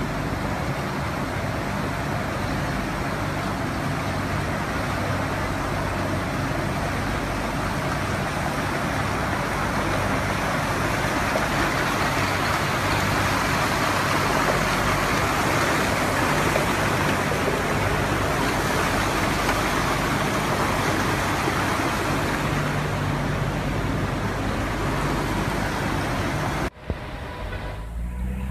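Floodwater rushing across and along metro tracks, a loud, steady rush with a faint low hum beneath it. Near the end it cuts off abruptly to quieter road traffic noise.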